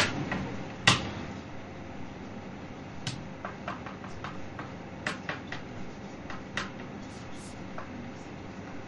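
Chalk tapping and scratching on a blackboard as a line is written: irregular short clicks, the loudest about a second in, over a steady room hiss.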